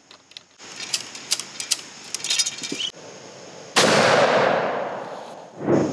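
Light clicks and rattles of the rifle and ramrod being handled during loading, then, about four seconds in, a single loud shot from a .50-calibre CVA Accura LR v2 inline muzzleloader charged with Blackhorn 209, its report dying away over about a second and a half.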